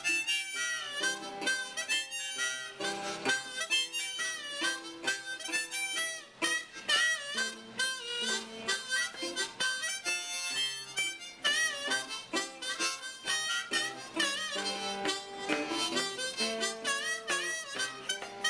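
Harmonica and resonator guitar playing a blues together: the harmonica holds and bends notes up and down over picked guitar notes.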